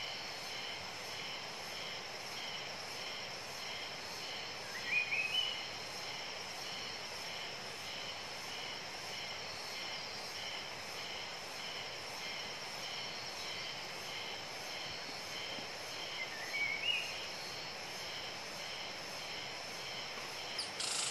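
Tropical forest ambience: a steady chorus of insects with a regularly pulsing high buzz, and a short rising call twice, about five seconds in and again near seventeen seconds. A louder high-pitched buzz starts suddenly just before the end.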